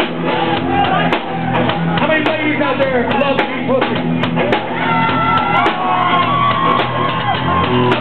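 Loud music playing, with several people shouting and singing over it.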